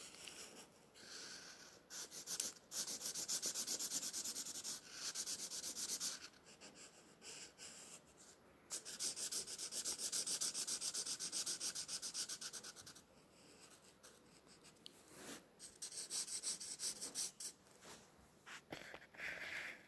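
Felt-tip marker nib rubbing on paper in rapid back-and-forth colouring strokes. There are two long spells of strokes lasting a few seconds each, with shorter runs between them and near the end.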